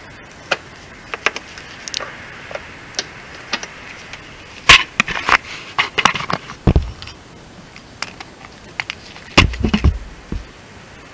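Scattered clicks, rustling and knocks of hands and tools working inside a car's front wheel-arch liner, with two bursts of louder bumps, about five seconds in and near the end.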